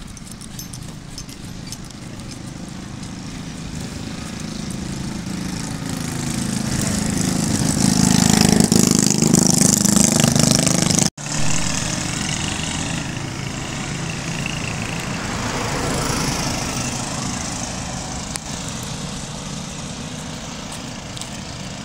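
Motor vehicle engine passing on the road, growing louder to a peak about halfway through and then fading, with a second, quieter vehicle going by a few seconds later.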